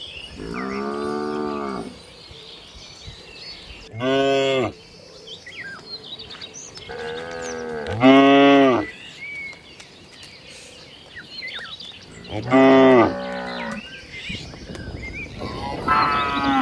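Cows in a herd mooing: five drawn-out moos of one to two seconds each, a few seconds apart, some lower and some higher in pitch.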